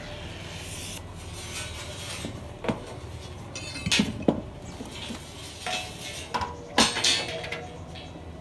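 Scraping and scattered sharp metal knocks and clanks from hand work on a Yamaha RX-King exhaust muffler, irregular, with the loudest knocks about four seconds in and near the seven-second mark.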